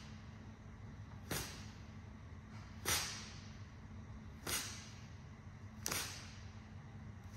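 A man's sharp exhales with the effort of each leg switch in a banded hollow-hold hip flexor march, four short hissing breaths about every second and a half, the second the loudest, over a steady low hum.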